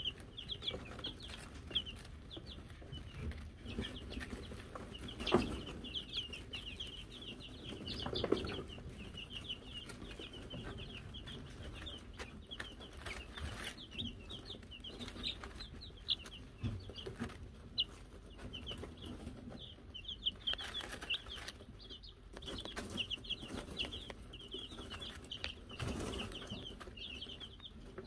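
A brood of Wyandotte chicks peeping steadily, many short high cheeps overlapping. A few soft thumps and rustles come through, the loudest about five seconds in.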